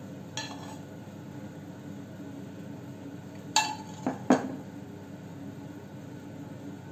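A utensil clinking against a ceramic plate: one light clink, then three sharper clinks in quick succession about three and a half seconds in, over a steady low background hum.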